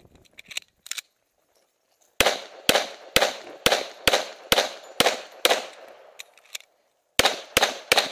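Handgun fired in a rapid string of shots, about two a second, at close range to the microphone, with a brief pause about six and a half seconds in before the shooting resumes.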